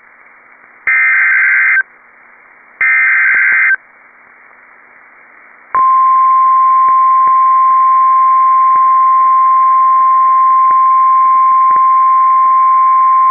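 Emergency Alert System SAME header data bursts: two screechy digital bursts about a second each, ending the header's three-burst set. After a short gap, about six seconds in, the steady single-pitch NOAA Weather Radio 1050 Hz warning alarm tone starts and holds; it announces a new severe weather warning about to be read.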